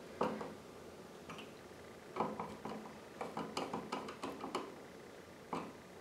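Screwdriver tightening an electrical receptacle's mounting screw into the outlet box: faint, irregular small metallic clicks and ticks, with a run of them in the middle.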